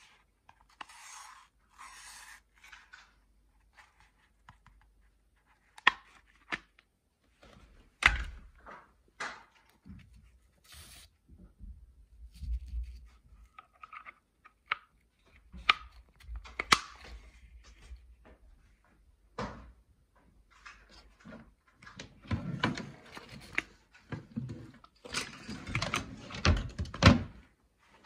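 Plastic vacuum-cleaner attachments being handled: a series of clicks, knocks and rubbing as nozzles and brushes are picked up, fitted together and set down, busiest in the last few seconds.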